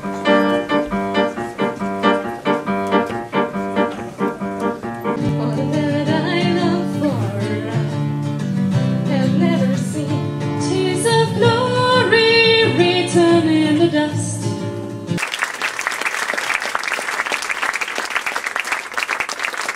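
Acoustic guitar and two women singing a song, the voices coming in about six seconds in. About fifteen seconds in, the music cuts off abruptly to an audience applauding.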